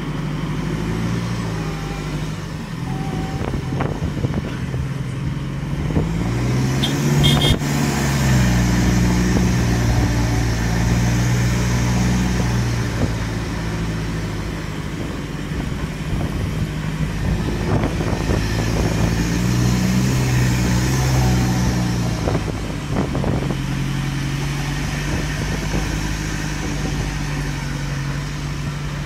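Engine of a pickup-type safari truck running as it drives along a rough dirt road, its pitch rising and falling as it speeds up and slows.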